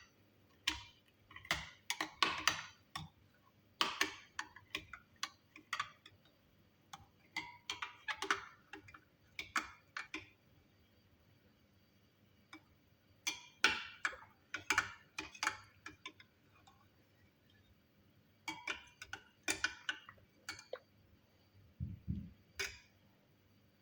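Kitchen utensils clicking and tapping in irregular clusters of sharp ticks, with a couple of pauses and one duller knock near the end.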